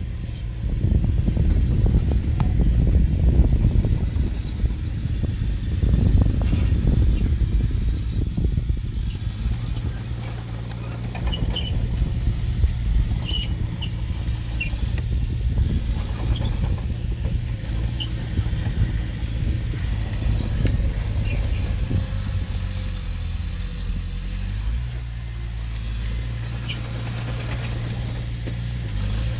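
Diesel engine of earthmoving machinery running under load, heavier and rougher for the first several seconds, then settling to a steadier note. Short high metallic squeaks and clinks come through now and then in the middle.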